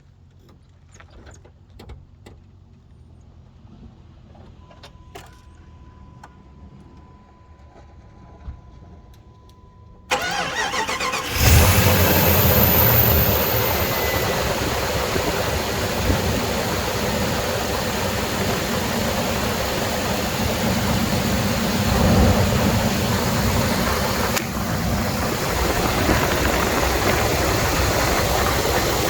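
A few faint clicks and a faint steady tone, then at about ten seconds the 1997 Jeep Grand Cherokee's 5.2 L Magnum V8 is cranked, catches a second later with a brief rev and settles into a steady idle. It is the first run after fitting the new power steering pump bracket, with the pump and belt turning on it.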